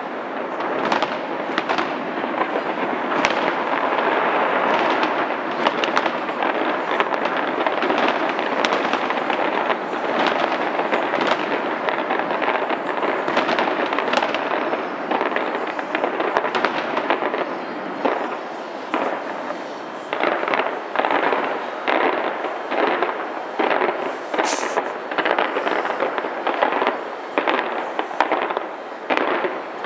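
Fireworks launched from the Taipei 101 skyscraper: a dense, continuous crackle of bursts that breaks up, about twenty seconds in, into separate bangs a couple of times a second.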